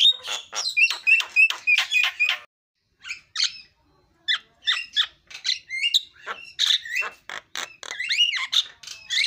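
Javan myna (jalak kebo) singing loudly in a fast series of short, sharp whistled notes. After a short pause about two and a half seconds in, it goes on with a varied chatter of bending whistles and harsher notes.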